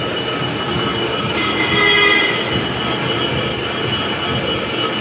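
A vehicle in motion: steady loud rumble with high metallic squealing tones over it, one swelling and fading about two seconds in.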